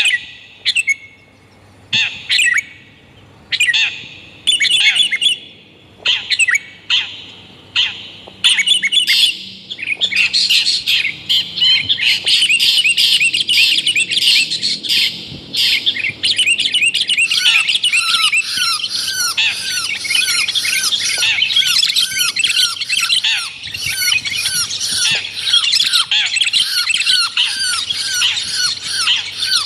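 Bird-lure recording of long-tailed shrike and sooty-headed bulbul calls: harsh, squawking calls at first come in separate bursts about once a second. From about ten seconds in they merge into a continuous dense chatter, and lower, quick notes join from about halfway through.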